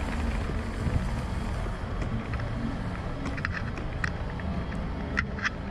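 Steady low rumble of wind and movement on a moving action camera's microphone, with scattered light clicks in the second half.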